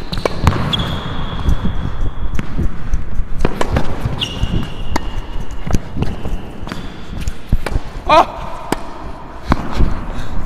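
Tennis rally on an indoor court: sharp racket-on-ball hits and ball bounces every second or so, with shoe squeaks on the court surface and the hall's echo.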